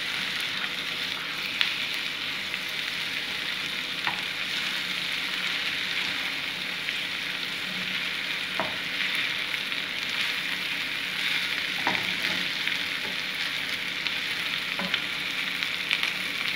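Sliced onions and capsicum sizzling steadily in a frying pan as they are stirred with a wooden spatula, which knocks lightly against the pan a few times.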